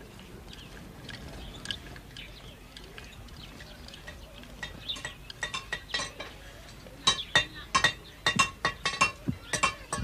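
Sharp clinks, each with a short ring, in quick irregular succession. They start sparse about four seconds in and come thick and fast in the last few seconds.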